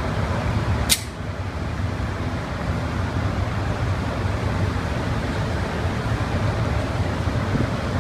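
A single gunshot cracks about a second in, over a steady low rumble.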